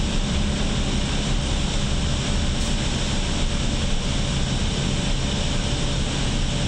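Steady cabin noise aboard an electric shuttle bus in motion: a low road rumble and hiss with a faint steady hum.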